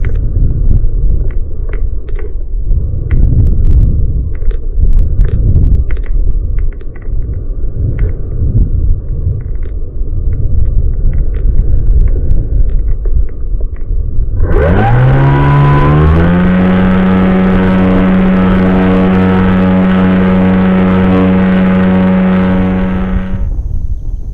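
Gusty wind buffeting the microphone. About fourteen seconds in, the RC paramotor's motor and propeller spool up, rising quickly in pitch, then run at a steady pitch for about nine seconds and cut off.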